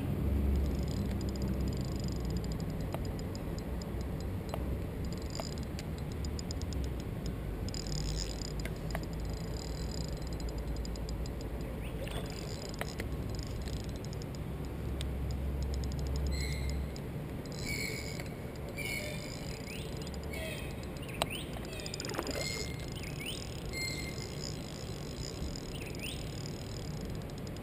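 Outdoor ambience by a pond: a low steady rumble with short chirping bird calls in the second half.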